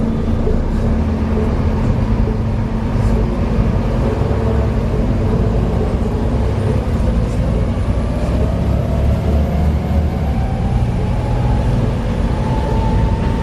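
Volvo B7TL double-decker bus under way: its six-cylinder diesel and the road noise make a steady low rumble, and from about halfway through a whine climbs in pitch as the bus gathers speed. This is the kind of driveline noise the uploader puts down to a bad differential.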